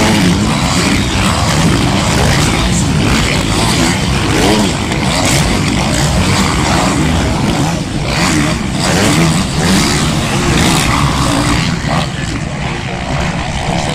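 A pack of motocross bikes racing over jumps, many engines revving and changing pitch at once. The noise eases off a little near the end.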